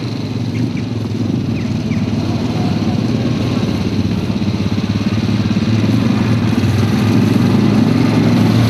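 Engines of two 700 cc four-stroke ATVs running as they drive toward the listener, growing steadily louder as the nearer one approaches.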